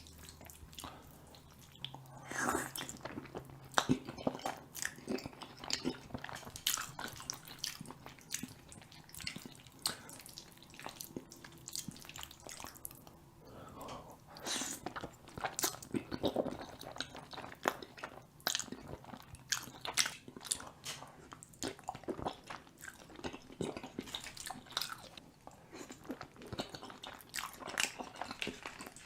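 A person eating chili cheese fries close to the microphone: chewing and biting, heard as an irregular run of short mouth clicks.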